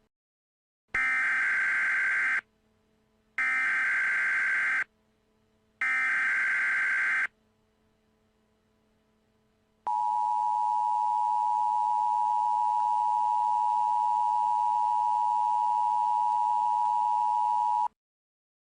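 Emergency Alert System (EAS) tones: three identical bursts of SAME header data, each about a second and a half, about one second apart. Then, after a two-second gap, the EAS attention signal, a steady two-tone alarm of 853 and 960 Hz held for about eight seconds, which announces the spoken alert that follows.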